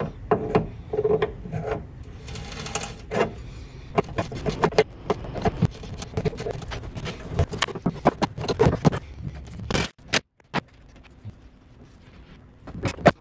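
Open-end spanner clicking and scraping on a 5/16 Whitworth fuel-line nut at a fuel tank as the nut is loosened and the fitting is then worked by hand: a quick string of small metallic clicks and scrapes. It goes quieter, with only scattered clicks, after a short break about ten seconds in.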